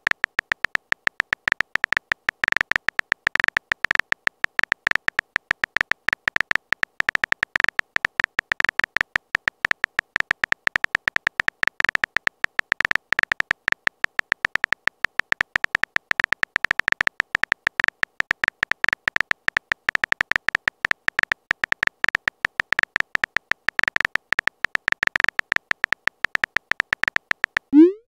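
Rapid, uneven stream of short electronic typing clicks from a texting app's on-screen keyboard, each a brief high beep, as a message is typed letter by letter. Near the end comes a short rising swoosh as the message is sent.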